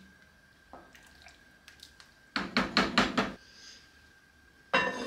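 A wooden spoon knocked against the rim of an enamelled cast-iron pot, about five quick taps in a second. Near the end the heavy matching lid is set on the pot with a single ringing clank.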